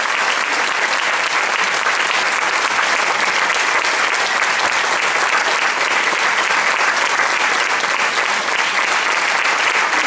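A theatre audience applauding steadily, many hands clapping at an even level.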